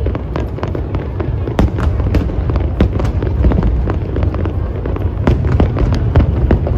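Fireworks display: a dense, rapid series of sharp bangs and crackles over a steady low rumble.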